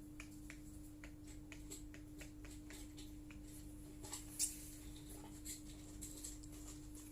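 Light, sharp clicks from a laptop being worked by hand, irregular and a few a second, with one louder click about four and a half seconds in, over a steady low hum.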